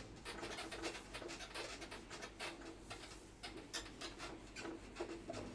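Quick, irregular scratchy strokes of a hand working on a classroom board, several a second.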